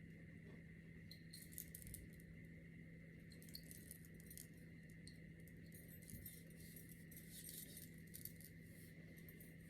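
Near silence: room tone with a faint steady electrical hum and scattered faint small clicks.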